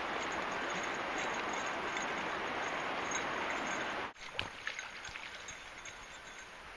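Steady rushing of running creek water, cut off suddenly about four seconds in. After that comes a much quieter background with a few light clicks and ticks.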